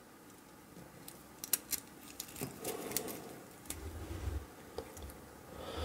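A dive watch's metal link bracelet and folding clasp being handled, giving a few faint metallic clicks and clinks, with soft handling bumps about four seconds in.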